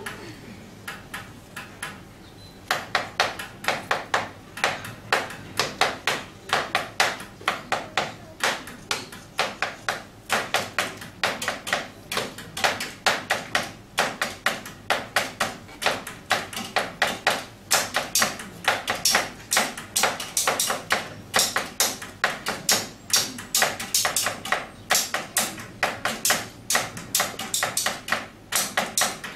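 Rhythmic percussion played on school desks and classroom objects: a few scattered taps, then, about three seconds in, a dense steady groove of sharp taps and knocks from several players.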